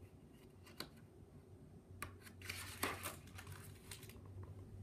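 Faint paper rustling with a few soft clicks, the page of a picture book being turned, loudest about two and a half to three seconds in.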